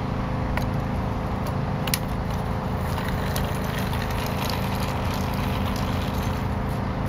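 Steady outdoor background noise, a low rumble and hiss like wind on the microphone, with a few faint clicks.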